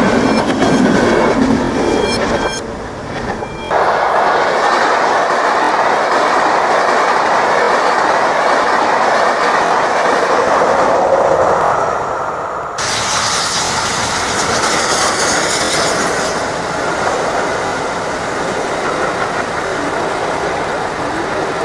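Passenger trains passing level crossings at speed: loud rushing and wheel clatter over the rail joints, one pass after another. The sound changes abruptly twice, about a third of the way in and a little past halfway, as one pass gives way to the next.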